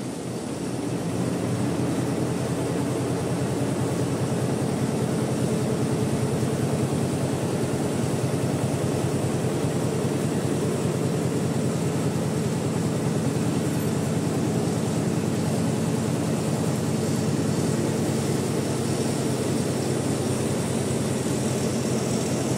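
Richpeace multi-head embroidery machine running, its needles stitching in a fast, even, steady rhythm; it grows louder about a second in.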